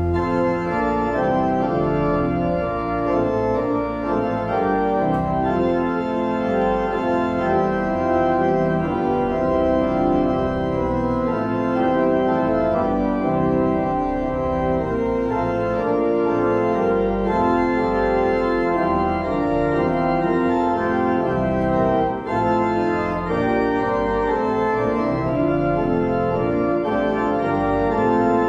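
Church pipe organ playing a hymn in full sustained chords, with no voices, and a short break between phrases about three-quarters of the way through.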